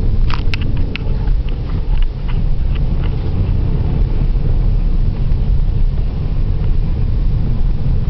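Steady low rumble of a 1993 Opel Vectra 2.5 V6's engine and tyres on a snow-covered road, heard inside the car's cabin. A few short sharp clicks come in the first three seconds.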